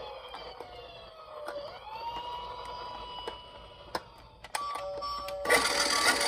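Toy police car's electronic siren wailing, its tone sliding down and back up, with small plastic clicks. About four and a half seconds in, a click is followed by a different siren sound of alternating pulsed tones. A second later a louder rushing noise comes in over it.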